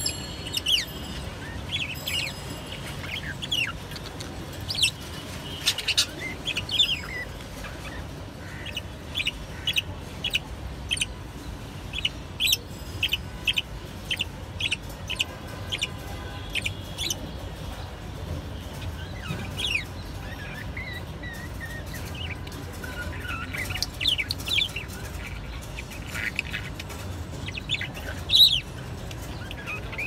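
Small caged pet parrots chirping: many short, high chirps throughout, with a quick regular series of them in the middle.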